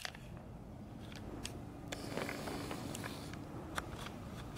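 Faint rustling with a few soft clicks as a handheld camera is moved about.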